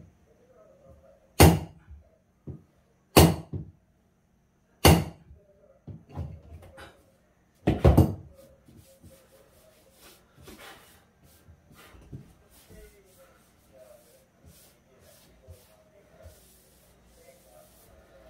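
Hammer blows on wood at the edge of a newly laid floor: four loud strikes spaced about one and a half to three seconds apart, with a few lighter taps between them. After that come only small clicks and handling noises.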